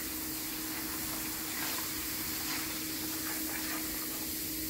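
Vinegar and baking soda foam fizzing on a fan screen in a tray, with soft rubbing from fingers on the mesh and a steady hum underneath.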